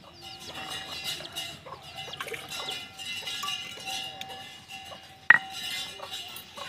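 Chickens clucking around a stone grinding slab while spice paste is scraped off it by hand, with one sharp metallic clink about five seconds in as the paste is scraped into a steel bowl.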